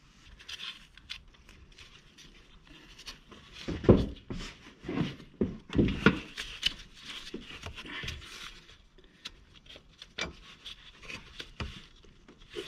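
Hand work on a car's serpentine belt drive: a wrench levering the belt tensioner back while the rubber belt is worked onto the pulleys. It gives scattered rubbing and scraping, with a few clunks, the loudest about four and six seconds in.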